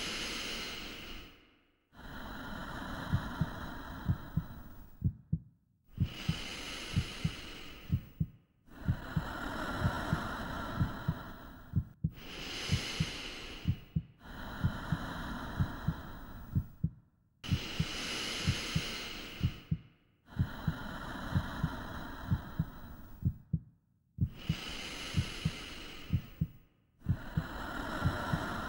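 Slow, deep human breathing, a long inhale and a long exhale in turn about every six seconds, over a steady double-beat heartbeat: a sound design of a living, breathing body.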